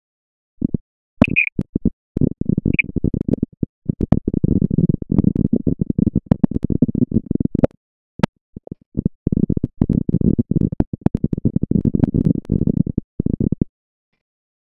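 A rough low rumble that comes in irregular fits and starts and cuts out abruptly several times, with scattered sharp clicks and two brief high chirps in the first few seconds.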